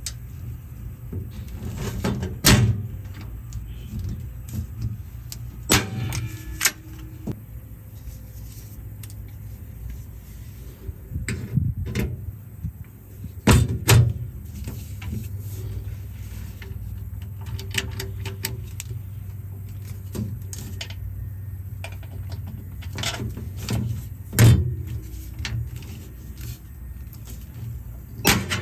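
Hand pop-rivet tool setting rivets into galvanized sheet steel: a series of sharp snaps a few seconds apart, each as a rivet's mandrel breaks, with lighter clicks of handling between, over a steady low hum.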